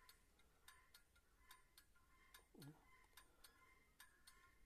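Zetor tractor's hazard-light flasher relay ticking faintly and evenly, a pair of clicks about every 0.8 s as the hazard lamps blink on and off.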